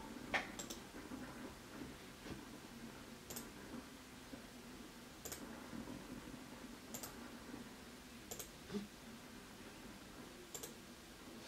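Faint computer mouse button clicks: single clicks at irregular intervals of one to two seconds, about seven in all, over low room noise.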